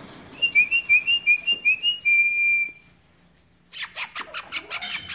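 Person whistling a quick two-note call to a dog, the two pitches alternating several times and ending on one longer held note. After a short pause comes a fast run of sharp clicks.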